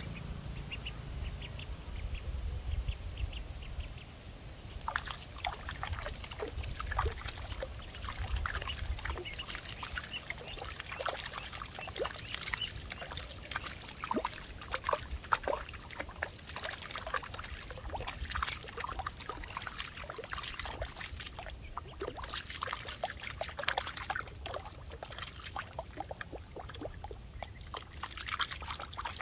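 A live duckling on a fishing line, used as snakehead bait, paddling and splashing in shallow muddy water in many short, irregular splashes, with a low rumble during the first few seconds.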